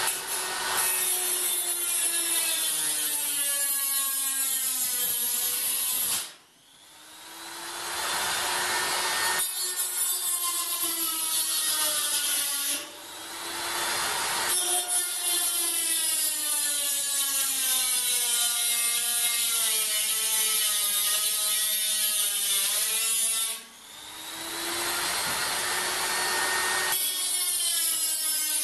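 Hand-held rotary tool with an abrasive cut-off disc cutting thin galvanised steel sheet: a high motor whine over a gritty cutting hiss, its pitch sagging and recovering as the disc bites. It cuts out three times, about six, thirteen and twenty-four seconds in, and spins back up each time.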